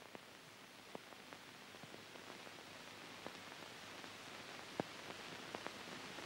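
Steady hiss with scattered faint, irregular clicks and crackles: the background noise of an old film soundtrack.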